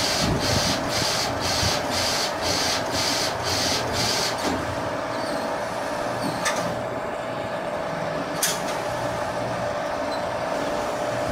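Compress iUV-600s LED UV flatbed printer running a print job on a tumbler in its rotary jig: a steady mechanical hum with rapid rhythmic pulses, about three a second, that stop about four and a half seconds in. Two sharp clicks follow a few seconds apart.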